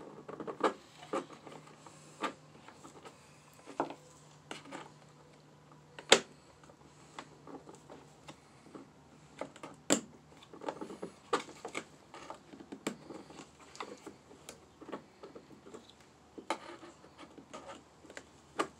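Hand work on the carburetor of a Holzfforma G660 chainsaw: irregular clicks, taps and knocks of plastic and metal parts being handled and worked loose, with sharper knocks about six and ten seconds in.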